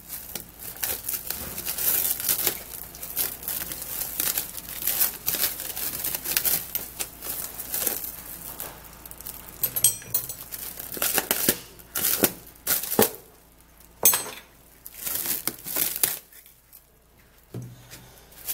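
Plastic cling film crinkling and rustling in irregular crackles as it is wrapped tightly around an arm, with a quieter stretch near the end.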